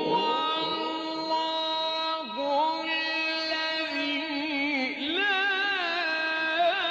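A male Qur'an reciter's voice holds one long melodic note in tajwid recitation. The pitch sweeps up into the note, then stays steady, and from about four seconds in it is ornamented with quick wavering turns.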